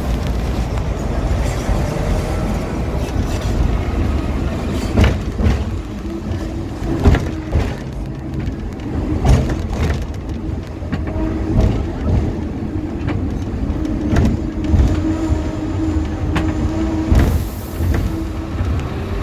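Hong Kong double-decker tram running along its track, heard on board: a continuous low rumble with sharp knocks every second or two from the wheels over the rails, and a steady motor hum that comes and goes, clearest in the second half.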